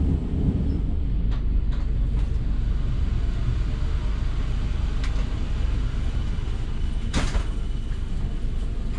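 Inside a moving passenger train coach: the steady low rumble of the coach running on the track. There are a few light clicks in the first couple of seconds and a short, sharper noise about seven seconds in.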